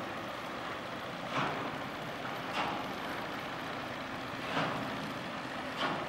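Steady low hum of the lake freighter American Century passing close by, with four short splashes of water at irregular gaps of one to two seconds.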